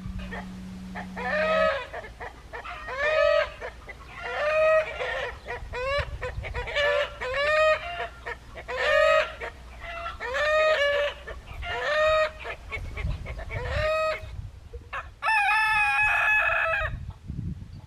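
Chickens calling: a string of short, rising calls about once a second, then one longer, level call near the end.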